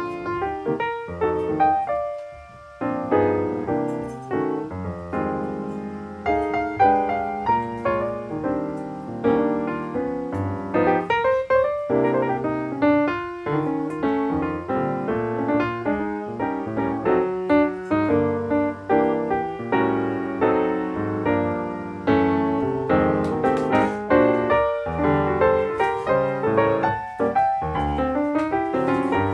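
Background piano music: a busy run of quick notes.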